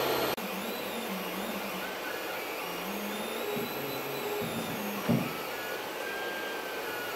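Elegoo OrangeStorm Giga large-format 3D printer running at the start of a print: a steady fan noise, with the stepper motors whining in short tones that change pitch as the printhead moves. There is a brief knock about five seconds in.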